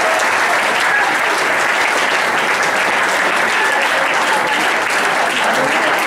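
Large indoor audience applauding, dense and steady throughout.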